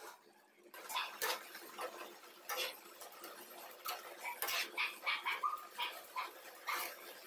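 A steel spoon stirring and scraping grated carrots in a non-stick pan: irregular scrapes and clicks, with a few short squeaks in the middle of the stirring.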